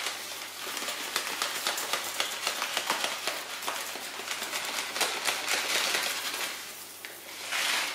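Dry red split lentils shaken from a plastic bag into a steel pot of pumpkin and water: a dense, rapid patter of many small ticks, with the bag rustling.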